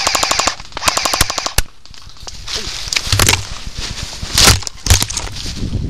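Airsoft rifle firing two full-auto bursts of rapid, evenly spaced shots: the first stops about half a second in, and a shorter one follows about a second in. After that come scattered crunches and thumps in dry leaves, like footsteps.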